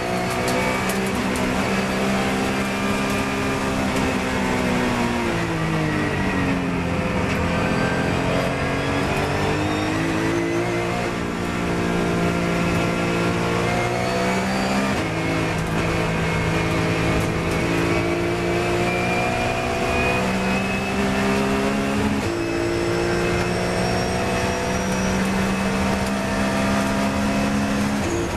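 Porsche 997 GT3 Cup's flat-six engine heard from inside the cockpit at race pace. Its pitch falls as the car slows for a corner a few seconds in, then climbs under full acceleration, with sudden drops at two upshifts about halfway and about three-quarters of the way through.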